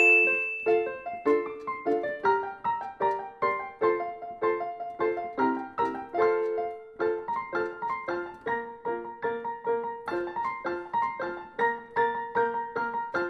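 Instrumental background music on piano, a steady run of short, bouncy notes. A bright ding rings out at the very start.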